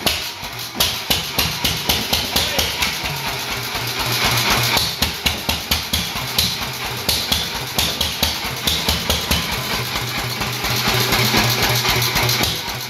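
Sunshine Sundial 4 hp single-cylinder stationary engine turning over with a regular beat of about three strokes a second while aerosol starting fluid is sprayed into it.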